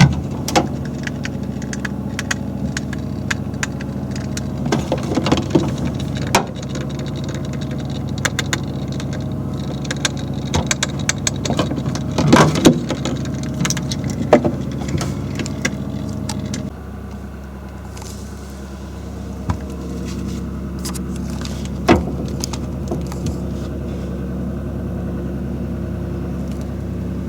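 Refrigerator running with a steady motor hum, with irregular sharp clicks over its first half; about two-thirds of the way through the hum drops in level and the clicks almost stop.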